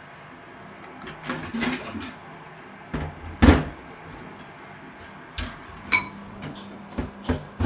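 Hands and tools working on the inside of a Vokera combination boiler while a replacement part is fitted: a run of irregular clicks, knocks and clatters, the loudest a sharp knock about three and a half seconds in.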